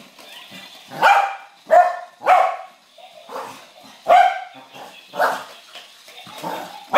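Dog barking repeatedly at a glowing light-up toy: a string of about half a dozen sharp, unevenly spaced barks, three of them close together in the first couple of seconds.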